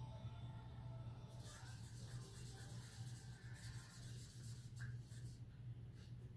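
A steady low hum with a few faint scratching and clicking noises.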